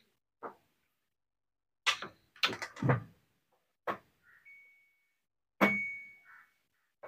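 Hand tools clicking and knocking against the metal parts inside an opened electric rice cooker, in a handful of separate strikes. The loudest, a little past halfway, is a metallic clang that rings on for about a second.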